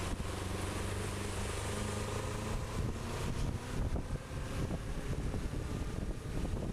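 Motorcycle engine running while riding, with wind buffeting the microphone; the steady low engine note fades into the wind noise about halfway through.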